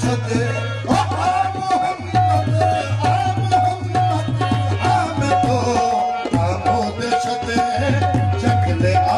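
Qawwali music with tabla drumming keeping a steady beat under the melody.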